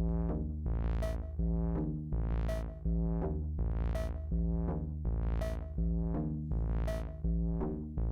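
Erica Synths Perkons analog drum machine playing melodic percussion sounds from its kit "01", straight from the machine with no external effects. A simple looping pattern of pitched percussive hits, each striking and then decaying, repeats evenly over a deep bass tone.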